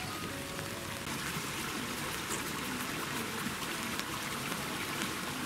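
Steady rain falling, an even hiss with scattered drops ticking and water trickling.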